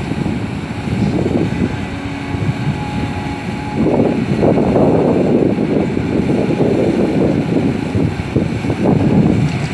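Caterpillar 320D excavator's diesel engine working under load, getting louder about four seconds in.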